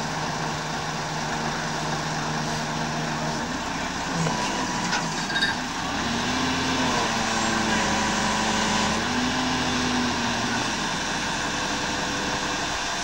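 Mobile crane's diesel engine running under load as it holds a Westland Wessex helicopter fuselage on its hook; the engine note steps up about six seconds in and drops back about eleven seconds in.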